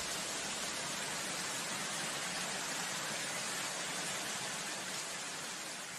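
A steady wash of white noise from an electronic dance track, with no beat, bass or melody, fading slowly near the end.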